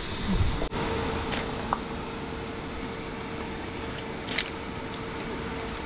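Steady whir of an electric fan with a faint even hum. A brief low falling groan comes right at the start, and a couple of light clicks follow as a folding camp chair's aluminium frame is fitted into its seat.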